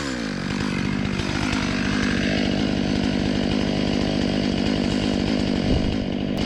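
Husqvarna T540 Mark III two-stroke top-handle chainsaw idling steadily, its revs dropping back to idle at the very start after a blip of the throttle.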